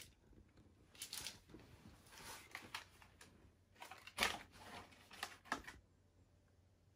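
Faint rustling and crinkling of a chocolate bar wrapper and a cardboard chocolate box being handled, in several short bursts.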